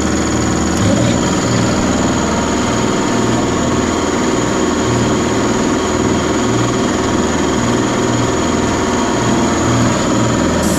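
Twin 3 hp belt-driven air compressor pumps and their electric motors running steadily under load, filling the tank, with a steady high whine that cuts out near the end.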